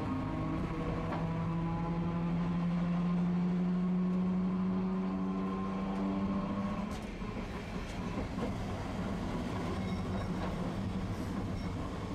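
Tosaden streetcar in motion, heard from inside the car: a motor-and-gear whine slowly rises in pitch for about seven seconds, then cuts off, leaving the rumble of the wheels on the rails.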